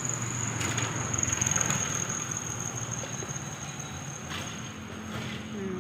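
Street ambience: a motor vehicle's engine running steadily, with a continuous high-pitched whine above it. The noise swells briefly about a second in.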